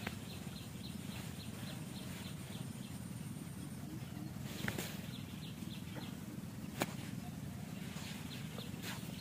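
Forest ambience: a steady low rumble, with a series of short high chirps repeating about four times a second for the first three seconds or so over a faint high whine. Two sharp knocks come in the middle.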